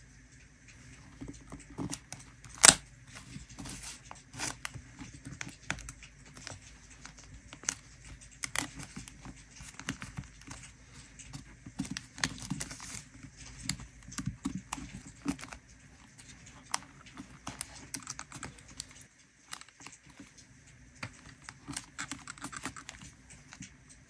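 Hands handling a decorated paper journal: scattered light taps, clicks and paper rustles, with one sharp click about three seconds in, growing sparser near the end.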